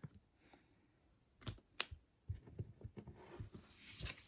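Quiet handling of trading cards and foil card packs: a couple of soft taps about a second and a half in, then faint rustling near the end.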